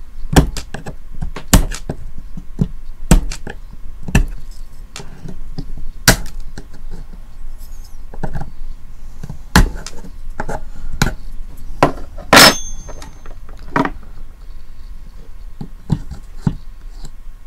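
Irregular sharp clicks and knocks of a knife blade and a screwdriver prying and scraping at the hard, dry plastic housing of a digital TV antenna. About twelve seconds in, one louder metallic clink rings briefly.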